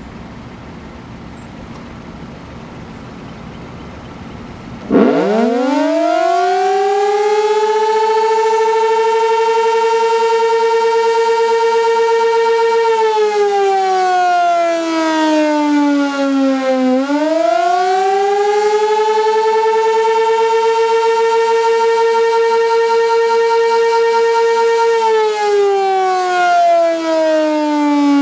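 Sentry 16V2T outdoor warning siren sounding for a test. After about five seconds of faint background noise it starts abruptly and winds up quickly to a loud steady tone. It then slides down in pitch, climbs back up, holds again, and slides down once more near the end.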